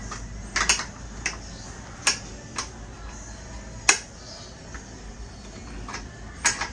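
A ratcheting wrench clicking on steel bolts as the bolts of a Vespa Primavera's rear bracket are worked loose: a handful of sharp metallic clicks at irregular intervals, the loudest about a second in and about four seconds in.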